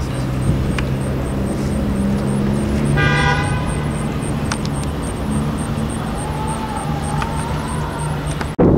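Freight train with diesel locomotives rolling past, a steady low diesel drone. A brief horn-like toot sounds about three seconds in, and a faint wavering whine comes near the end.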